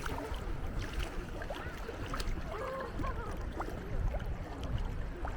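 Wind rumbling on the microphone over small waves washing on a shallow sandy shore, with faint distant voices and a few light splashes or clicks.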